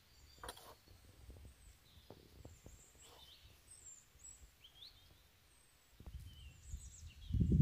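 Outdoor ambience on an open bank: faint, scattered bird chirps over a low background. A low, gusty rumble of wind on the microphone builds near the end and becomes the loudest sound.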